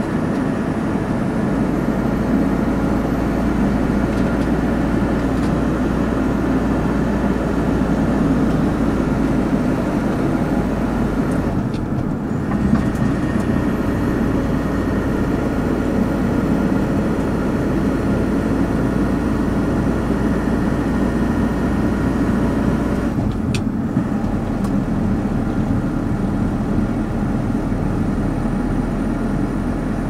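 Steady engine and tyre-on-asphalt noise heard from inside a moving car, over a low engine hum. Twice, about 12 seconds in and again about 23 seconds in, the noise briefly dips and the hum changes.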